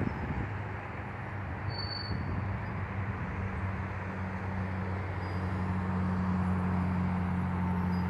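Steady highway traffic noise from cars and trucks passing on the road below, with a low engine hum that grows louder in the second half as a heavy truck comes by. A brief high chirp sounds about two seconds in.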